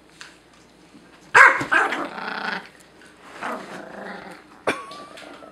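Pomeranian growling and barking in warning, guarding its spot on the couch from a larger dog. The loudest burst starts about a second in and lasts over a second, and a weaker one follows in the middle.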